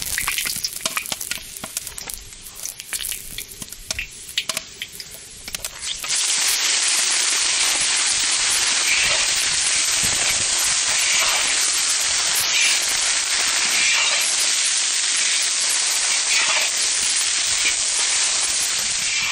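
A slotted skimmer clicks and scrapes against a cast-iron kazan with a little oil sizzling. About six seconds in, frog legs, shrimp and squid rings hit the hot oil and it breaks into a loud, steady sizzle, which runs on as they are stirred.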